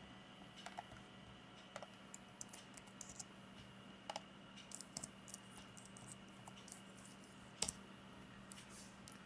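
Faint, scattered computer keyboard keystrokes and mouse clicks as a folder path is typed into a command prompt, with one louder click near the end, over a faint steady hum.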